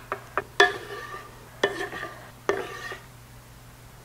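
A spoon stirring browned ground beef, onions and peppers in a ceramic slow-cooker crock, knocking against the crock with a few sharp clinks that ring briefly. The loudest clink comes about half a second in, and more follow about a second and two seconds later.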